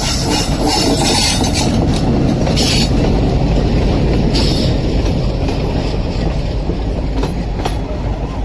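Train running past close by, its wheels rumbling steadily on the rails. A few short hissing bursts sound over the rumble, and two sharp clicks come near the end.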